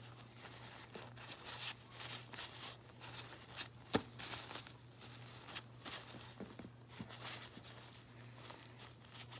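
Pink slime being squeezed and crushed between gloved hands: irregular crackling, squishing pops, with one sharp tap about four seconds in.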